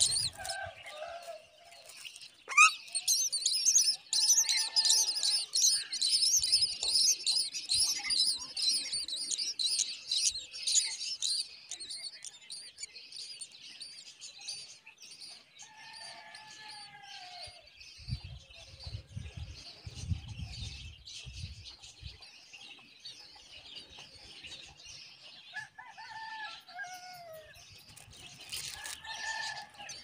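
Common myna nestlings begging: a dense stream of high, rapid chirping that is loudest over the first dozen seconds and then thins out, with a few lower, falling bird calls over it.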